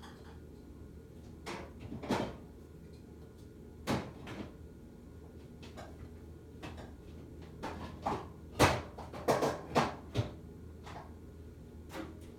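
A series of irregular knocks and clatters, like objects being handled, loudest and most frequent about eight to ten seconds in, over a steady low hum.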